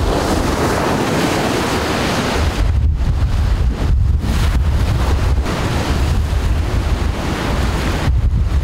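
Storm-force wind gusting against the microphone with a heavy, uneven low rumble, over the hiss of rough surf and spray breaking on a rocky shore. The surf hiss is strongest in the first couple of seconds.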